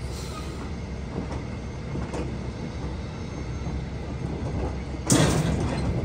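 Rear door of a livestock trailer being worked open: a couple of light metal clicks, then a loud metallic clang and scrape about five seconds in. Under it runs a steady low rumble from the truck.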